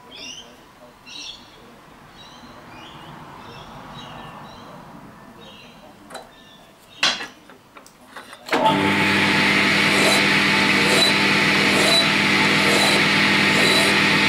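Small metal lathe switched on about two-thirds of the way through and running steadily with a regular tick, spinning a tapered steel pin in its chuck so it can be filed down because the bevel gear fits it too tightly. Before that, quiet handling and a couple of sharp knocks as the gear is taken off the pin.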